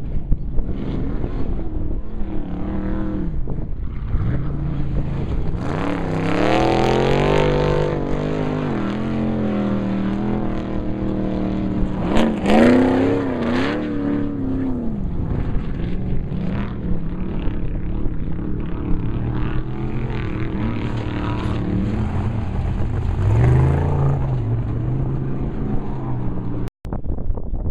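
Off-road race vehicle's engine running hard at speed, its pitch climbing and falling several times as it accelerates and eases off, over a steady low rumble. The sound drops out for an instant near the end.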